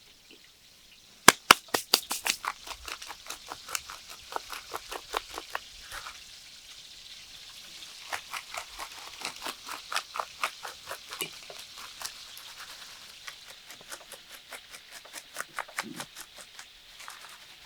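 Hot oil crackling and popping as food deep-fries: irregular sharp pops over a faint sizzle, starting about a second and a half in.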